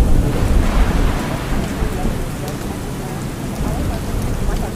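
Rain and thunderstorm ambience: steady rainfall hiss under a low rumble of thunder, loudest in the first second and then settling.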